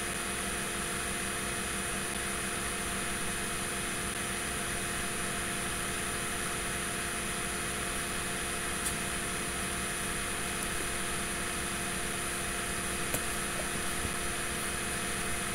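Steady background hum and hiss with a few faint, fixed tones running under it, and a couple of faint ticks.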